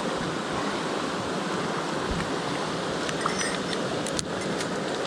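Mountain stream water rushing steadily, with a couple of light clicks about three and four seconds in.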